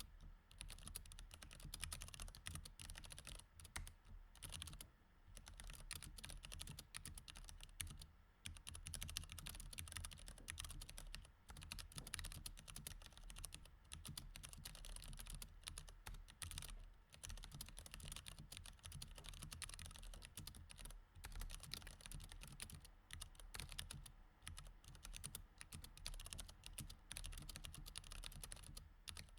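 Steady, fast typing on a mechanical keyboard with Cherry MX Red switches: a dense run of soft key clicks with a few brief pauses.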